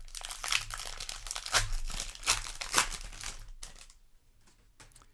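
Crinkling of a foil Magic: The Gathering play booster wrapper being handled, with a few louder crackles, for about three and a half seconds; then it quiets to a few faint clicks.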